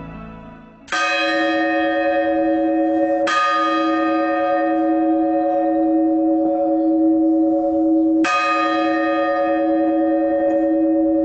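A church bell struck three times, about a second in, a couple of seconds later and again five seconds after that, each strike ringing on in a long steady hum that carries through to the next.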